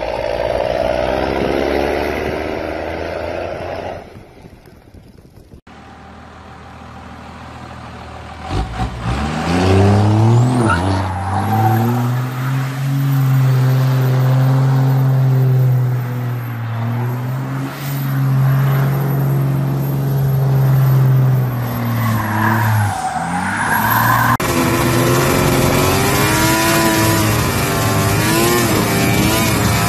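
Pickup truck engines run hard in a run of short clips. A diesel pickup revs as it spins through snow with black exhaust smoke. About ten seconds in an engine climbs to high revs and holds there at a steady pitch for about twelve seconds, then another truck's engine revs up and down as it throws up snow.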